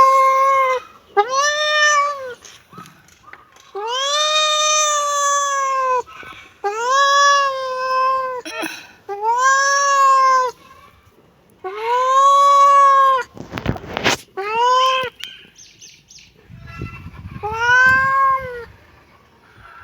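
A kitten meowing over and over: about eight drawn-out meows, each rising and then falling in pitch, the longest about two seconds. A brief sharp crackle comes about two-thirds of the way through.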